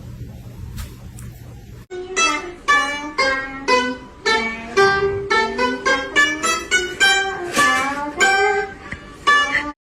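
Music on a plucked string instrument, a quick picked melody of sharply struck notes starting about two seconds in and cutting off suddenly near the end. Before it there is a low steady hum.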